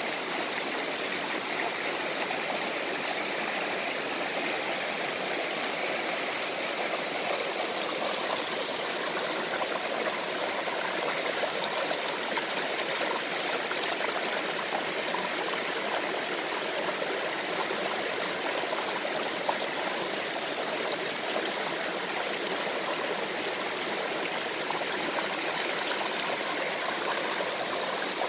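A stream and small waterfall flowing steadily: an even, unbroken rush of water.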